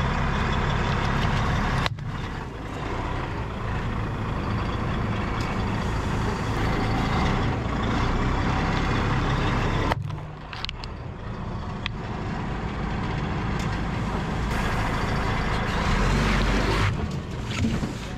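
Heavy truck's engine running steadily close to the ground, with the sound cutting abruptly about 2 s and 10 s in.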